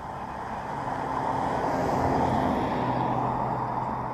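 A sedan passing by on a paved road. Tyre and engine noise swells to a peak about two seconds in, then fades as the car drives away, and the engine hum drops in pitch as it goes past.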